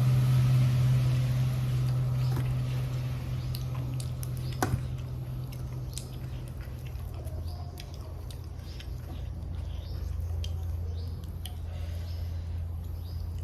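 Close-up eating: chewing with scattered short, wet clicks and crunches. A steady low hum runs underneath and drops in pitch about halfway through.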